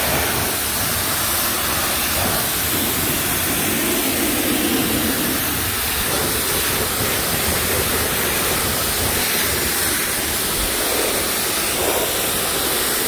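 Pressure washer jet spraying a wheel, tire and the concrete under it, a steady loud hiss of water, rinsing off pre-sprayed degreaser and road grime.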